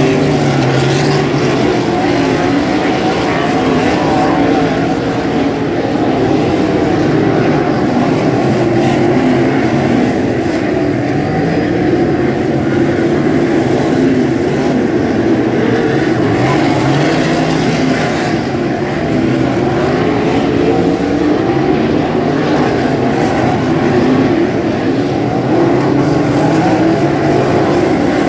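Winged 360 sprint cars' V8 engines running together on a dirt oval, a steady loud drone whose pitch rises and falls as the cars go around the track and pass by.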